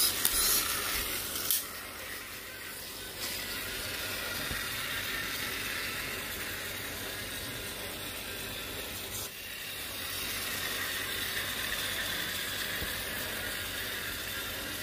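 Pull-cord toy battle car (Mechnimals 'Vũ Điệu Cuồng Phong'): the cord is yanked for about the first second and a half, then the cord-wound flywheel drive whirs steadily as the car runs across the floor tiles. Its motor sound is fairly quiet, with a brief drop about nine seconds in.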